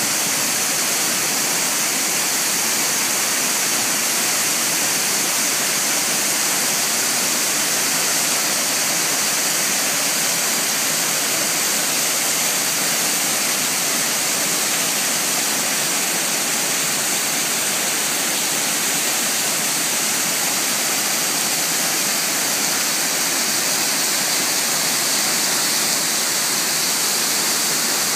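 Waterfall: a steady, even rush of falling water, strongest in its high hiss.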